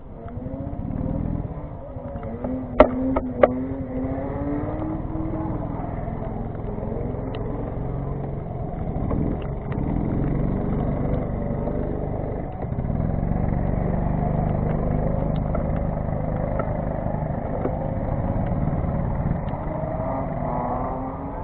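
Go-kart engine pulling away and running at speed, its pitch rising and falling with the throttle. Three sharp knocks about three seconds in.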